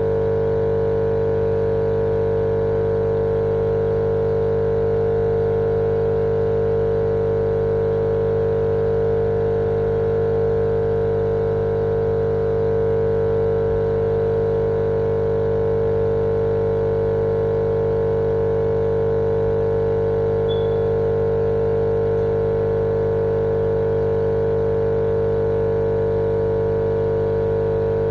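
Steady, unchanging machine drone: a strong mid-pitched hum over a low rumble, with no change in pitch or level.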